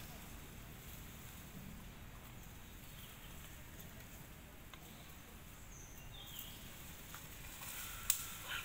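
Outdoor ambience: a steady low rumble, with a few short, high chirping calls in the last few seconds and one sharp click about eight seconds in.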